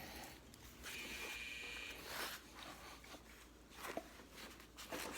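Faint handling sounds of a karambit knife sheath being worked open: light clicks and a short scraping rasp about a second in.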